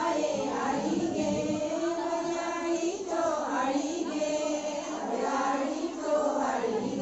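A group of women singing a Dhalo folk song together in chorus, their voices holding long notes.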